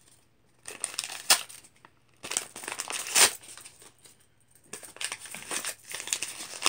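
Sheets of paper being torn and crumpled by hand while unwrapping a small object, in three bursts of crinkling with short pauses between.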